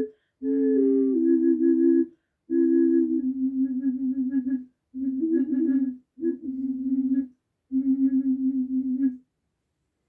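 Three-hole double ocarina playing a tune: a held low drone note sounds together with a higher melody note, in short phrases broken by brief breath pauses. The later phrases pulse with quick tongued repeats, and the playing stops about nine seconds in.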